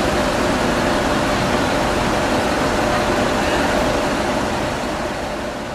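Steady rumble and hiss of idling tour-bus engines, fading near the end.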